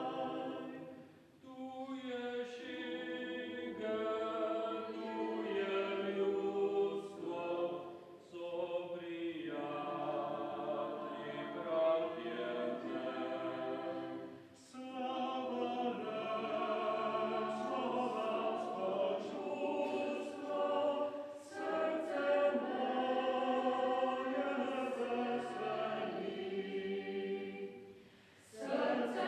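Mixed choir of men's and women's voices singing in parts, holding long notes, with a few short breaks between phrases.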